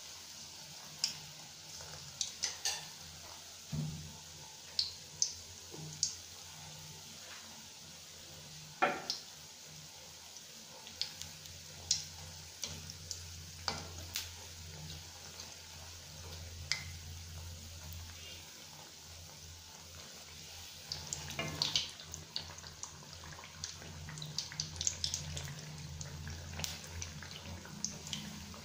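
Sweet bonda batter balls deep-frying in hot oil: a steady sizzle with frequent sharp crackles and pops, busiest a little past two-thirds of the way through, over a low steady hum.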